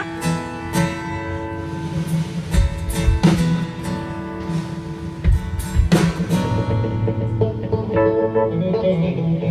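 A band playing the instrumental intro of a country song: acoustic guitar strumming, with a few drum hits.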